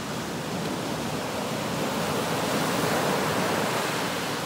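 Ocean surf breaking and washing up a beach of fine black pebbles, one wave's rush swelling to its loudest about three seconds in.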